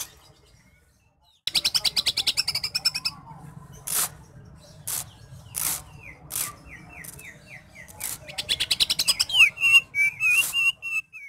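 Greater green leafbird (cucak hijau) singing in a cage: a fast rattling trill, a few sharp single calls, a run of short down-slurred notes, then another trill and a warbling phrase near the end that cuts off abruptly.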